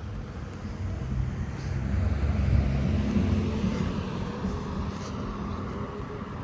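A motor vehicle's engine running close by. It grows louder about two seconds in, then slowly fades as the vehicle moves off.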